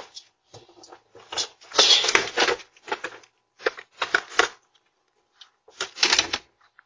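A baby stroller rattling and clattering in irregular bursts as it is pulled out of a front door and wheeled along.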